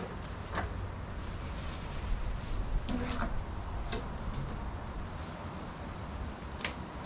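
Scattered short knocks and clatters of hand tools and materials being handled, about four in all, over a low steady rumble.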